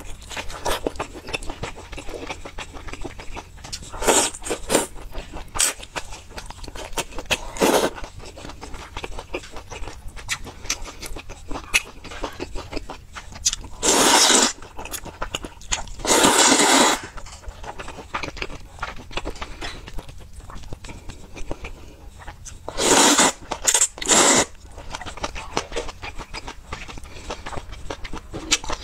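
Close-up eating sounds of spicy noodles and sausage: steady chewing and mouth clicks, with two long noodle slurps around the middle and two shorter slurps later on.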